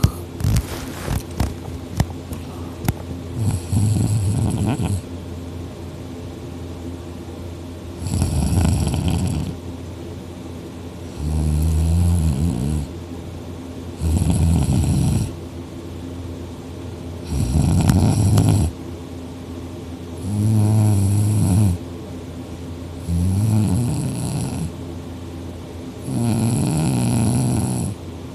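A man deeply asleep on his back, snoring loudly: a low, buzzing snore about every three seconds, eight in all. There are a few sharp clicks in the first three seconds.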